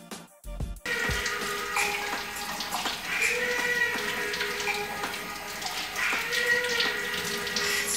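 A tap running steadily, starting about a second in, under background music with held notes.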